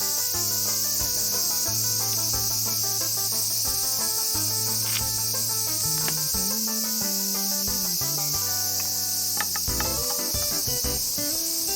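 Background music with a slow melodic line over a loud, steady, high-pitched insect chirring, such as crickets or cicadas.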